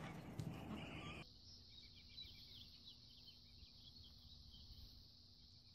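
Near silence outdoors, with faint high chirps of small birds in the distance. A short stretch of rough outdoor noise cuts off about a second in.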